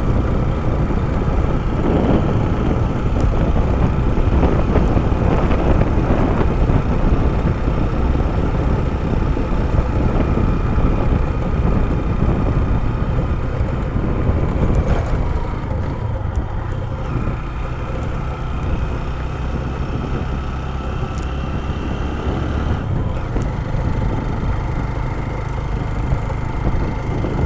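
Motorcycle running steadily under way, with wind buffeting the microphone; the engine note eases slightly about halfway through.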